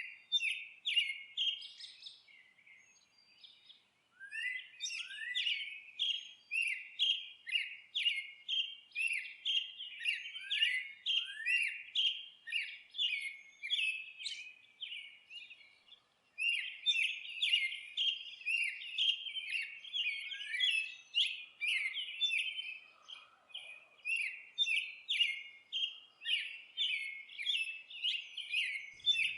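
Songbirds chirping in long runs of short, rising notes, about two a second, with fainter high twittering above them. A short lull comes a few seconds in, and the chirping drops out and restarts abruptly about halfway through.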